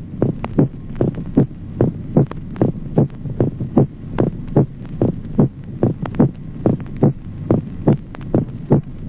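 Recorded human heart sounds: a regular lub-dub rhythm of roughly one beat a second, with a reinforced, loud second heart sound, over a steady low hum.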